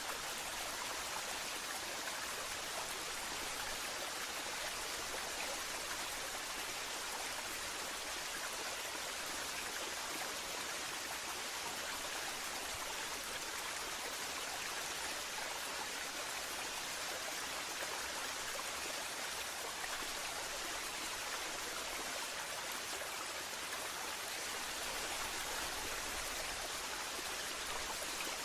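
Waterfall: a steady, even rush of falling water, without pauses or changes.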